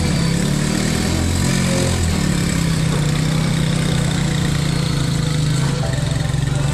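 Motorcycle engine of a passenger tricycle idling steadily, its pitch shifting a little in the first couple of seconds before it settles.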